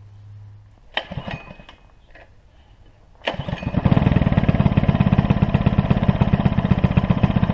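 Earthquake Versa front-tine tiller's 99cc four-stroke Viper engine starting: a short burst about a second in, then the engine catches a little after three seconds and settles into steady, fast running.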